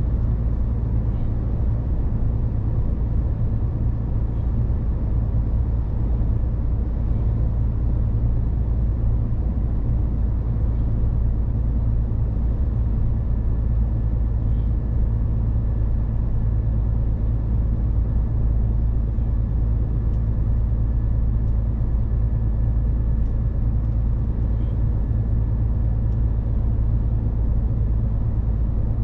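Scania 500S truck cab at highway cruising speed: the 13-litre straight-six diesel drones steadily, under a constant rush of tyre and road noise.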